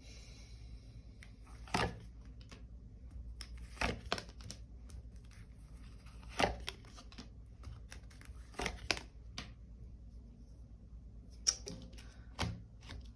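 Tarot cards being handled and laid out on a table: about eight short, sharp card snaps and taps at irregular intervals, with quiet rustling between them.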